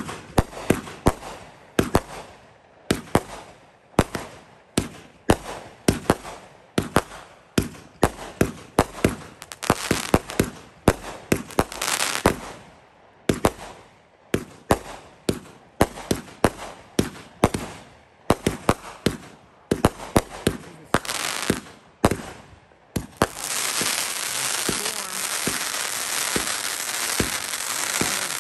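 Consumer firework cakes firing: a rapid run of sharp shot-and-burst reports, several a second. About 23 seconds in they give way to a dense, continuous crackling from crackling stars.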